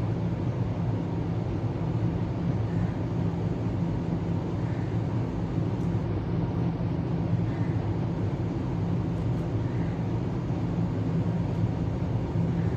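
Steady low hum with a hiss over it, unchanging throughout: background machine noise such as an air conditioner or fan.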